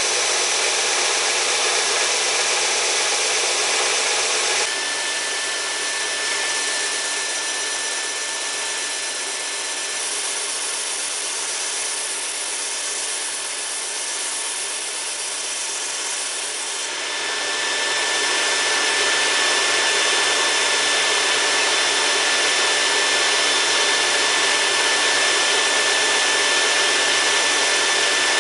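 Electric sanders running with wood being sanded. At first a burl wood pistol grip blank is held to a sanding wheel. After a sudden change about five seconds in, a wood block is pushed along the belt of a combination belt and disc sander, making a steady hiss over a motor whine that grows louder a little past halfway.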